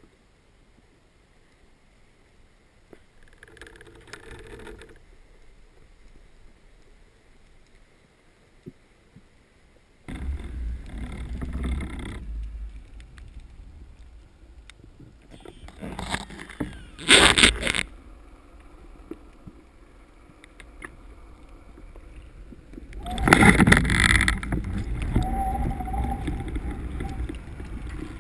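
Underwater sound from a camera mounted on a speargun: a low rush and gurgle of water, faint at first and much louder from about a third of the way in, with a few short loud bursts of noise near the middle and again later.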